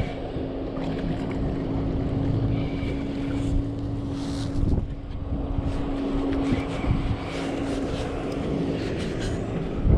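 Wind buffeting the microphone, with a steady low hum under it that breaks off briefly about halfway and stops near the end.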